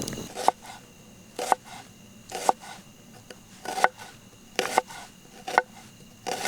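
A knife knocking on a chopping board in about seven sharp, separate strokes, roughly one a second, during food preparation.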